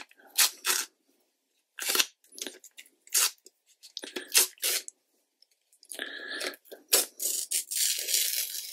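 Masking tape being torn by hand into narrow strips for masking out birch trunks: a series of short, irregular rips, with a longer tear near the end.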